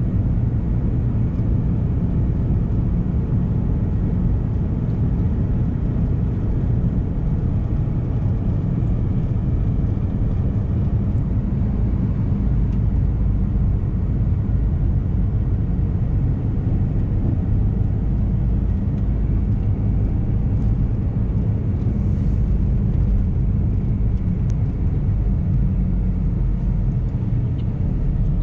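Steady low rumble of a car being driven at road speed, engine and tyre noise heard from inside the cabin.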